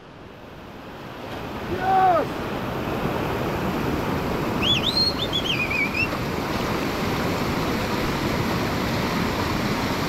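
Steady rush of moving water, building up just after the start. A short pitched call comes about two seconds in, and high warbling calls come around five seconds.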